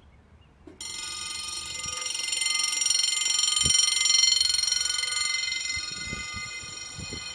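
Level-crossing warning bell ringing continuously. It starts about a second in, grows louder toward the middle and eases off near the end, with a few faint knocks underneath.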